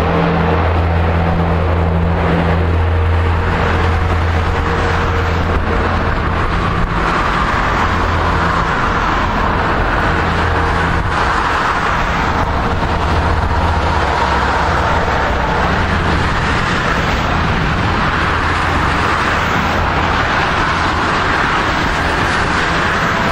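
Antonov An-22's four Kuznetsov NK-12 turboprops with contra-rotating four-blade propellers, a loud steady drone with a deep hum. The hum is strongest in the first few seconds, and a fainter whine slowly drops in pitch as the aircraft flies away on approach.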